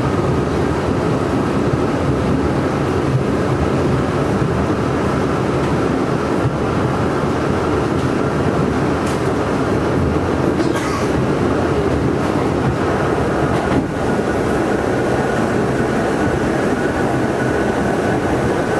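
An R68 subway car running at speed, heard from inside the car: a steady rumble of wheels and motors with a faint high whine, and a few sharp clicks from the track about halfway through.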